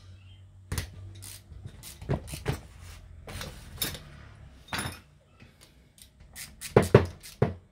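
Metal hand tools clinking and knocking against a starter motor while a 7 mm key is fitted to its bolts. The knocks are irregular, with a loud cluster of clanks near the end.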